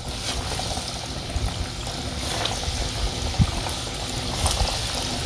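Breaded chicken nuggets sizzling and crackling in hot oil as they are dropped in to deep-fry. The sizzle is steady, with one sharper pop about three and a half seconds in.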